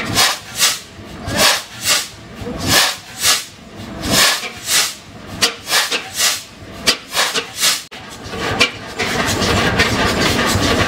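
Duvant 6NN low-speed diesel engine starting: a slow run of hissing puffs, a little under two a second and quickening slightly, then a steady running sound about nine seconds in as the engine settles into running.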